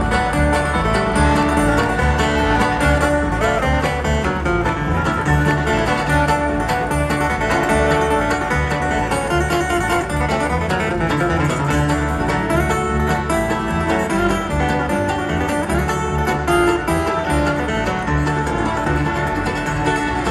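Live bluegrass band playing an instrumental passage: acoustic guitar and banjo picking over a steady bass beat, heard from within the concert crowd.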